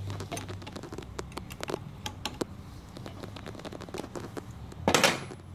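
Small irregular metallic clicks and taps as a 10 mm wrench loosens the negative battery terminal clamp and the cable is worked off the post. A louder scraping rustle comes about five seconds in.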